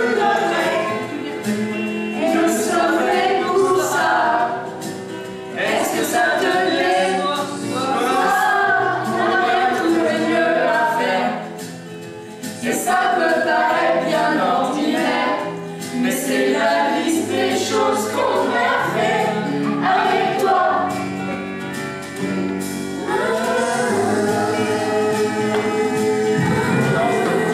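A group of voices singing a song together over instrumental accompaniment, with a brief lull a little before the middle.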